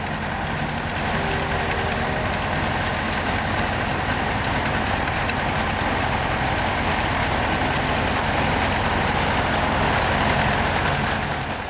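Vintage Massey Ferguson combine harvesters and tractors working a field together, their engines and machinery making a steady, unbroken noise.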